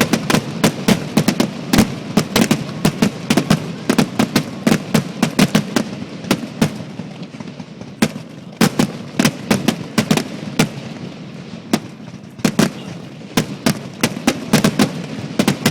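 Aerial fireworks going off in a rapid barrage: several sharp bangs and crackles a second over a steady low rumble of booms.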